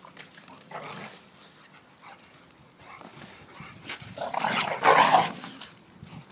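Dogs vocalising during rough play-fighting, with a short burst about a second in and a much louder burst of dog noise about four to five seconds in.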